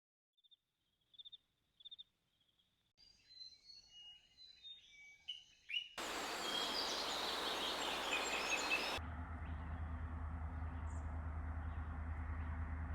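Small birds chirping and singing in short bursts, in a few clips cut together. From about six seconds in a loud steady rushing noise lies under the birds, and from about nine seconds a low steady hum.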